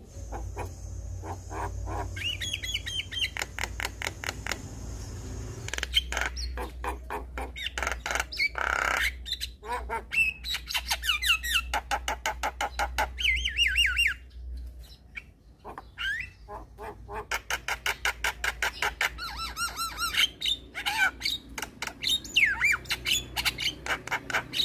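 Javan myna (jalak kebo) singing: fast runs of harsh squawks and dry rattling clicks mixed with short whistled notes that slide up and down, with a brief pause partway through.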